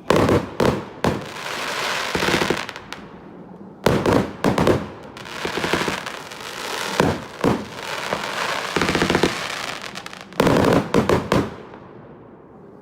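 A 30 mm, 128-shot consumer firework cake firing: salvos of sharp bangs from launches and bursting shells, with crackling, coming in loud clusters every second or two. The last salvo ends about a second before the end and the sound dies away.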